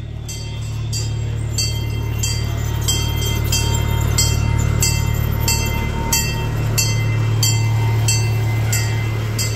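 Railroad grade-crossing bell ringing about twice a second, its strikes sounding electronic rather than like a true mechanical bell, over a steady low hum as a miniature train passes the crossing.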